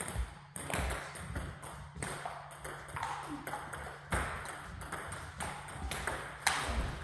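Table tennis balls clicking off bats and tables in rallies on two tables at once, giving a busy, irregular run of sharp ticks in a sports hall.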